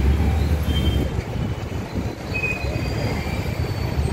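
Dense road traffic: the engines of a jammed line of motorbikes, auto-rickshaws and cars, with a deep low rumble in the first second.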